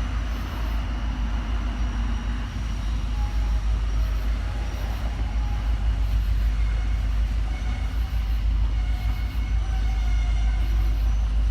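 EMD diesel locomotives of a freight train running, a steady low rumble.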